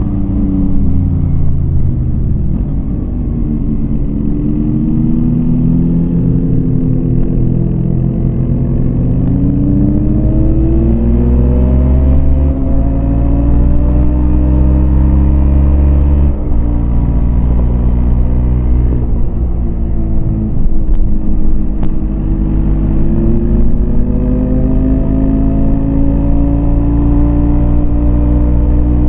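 Yamaha MT-25's parallel-twin engine pulling under way, its pitch rising and falling as the throttle opens and closes, with a couple of sudden drops in pitch about twelve and sixteen seconds in.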